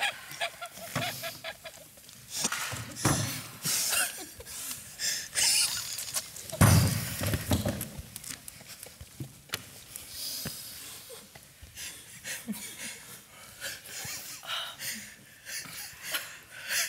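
Several people with their mouths clamped shut on fizzing baking soda and water, wheezing, snorting and panting through their noses while stifling laughter. A loud, deep splutter comes about six and a half seconds in.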